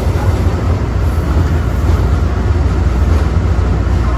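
An MBTA Green Line light-rail car running along the track, heard from inside the car: a steady, deep rumble with even running noise over it.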